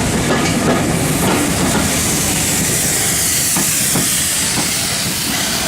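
Steam-hauled railway carriage running along the line, its wheels clicking over the rail joints, with a hiss rising about two seconds in.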